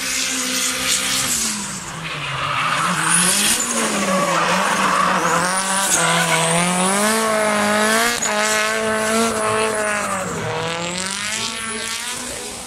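Drift car engine revving hard, its pitch rising and falling over and over with the throttle as the car slides sideways, with the rear tyres screeching and smoking. It is loudest in the middle as the car passes close by.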